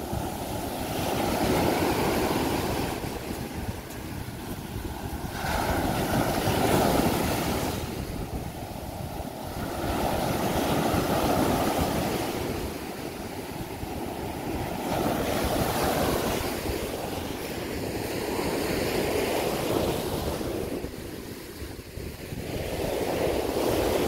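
Surf breaking and washing up a sandy beach, a rushing noise that swells and fades every four to five seconds, with wind on the microphone. The waves are rough enough that a cast net can hardly be thrown.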